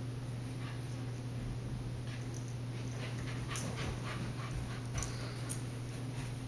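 Husky puppy panting, over a steady low hum, with a few short sharp clicks in the second half, the loudest about five and a half seconds in.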